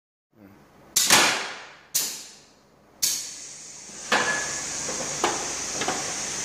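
Hand-operated pneumatic valve switching compressed air on a chocolate molding line's mould mechanism: three sharp clacks about a second apart, each followed by a fading rush of air. From about four seconds in, a steady air hiss with two short clicks.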